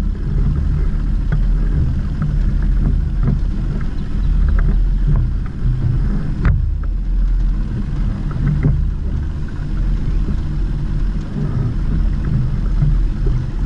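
Bass boat's outboard motor running steadily, a constant low rumble.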